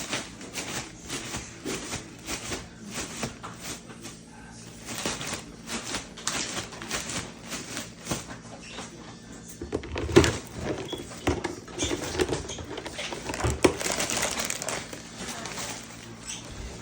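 Irregular clicking, tapping and light clatter of food and containers being handled, with two louder knocks, one about ten seconds in and one about three and a half seconds later.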